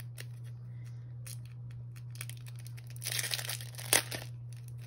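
Crinkling and tearing of a small plastic packet being opened, starting about two seconds in and loudest in the last two seconds, with one sharp click near the end.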